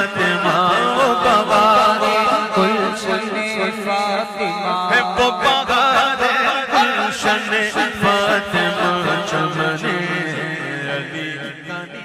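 Urdu devotional song (manqabat): a wavering, ornamented melodic line over a steady low drone with hand percussion, fading out near the end.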